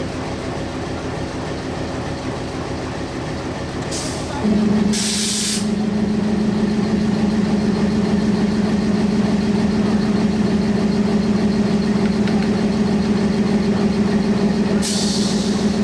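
WDM-3A diesel locomotive engine running steadily, with a louder steady hum setting in about four and a half seconds in. Short bursts of air hiss at the brake hoses as they are handled and connected, around four and five seconds in and again near the end.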